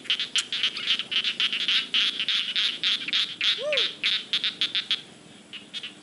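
Frogs calling in chorus: fast, high-pitched rattling calls repeated over and over, dying away about five seconds in. A single short, lower call that rises and falls comes a little past halfway.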